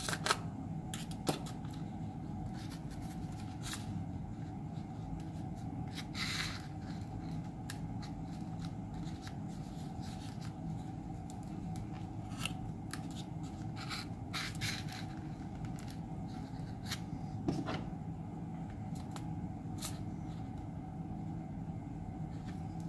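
Small scratches, clicks and rustles of fingers working a servo wire and its connector through a tight gap in a foam model airplane, scattered irregularly over a steady low hum.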